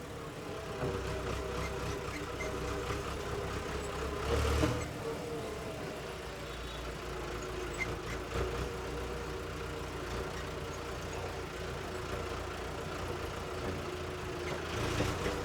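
Tractor engine running steadily, with a brief louder surge about four and a half seconds in.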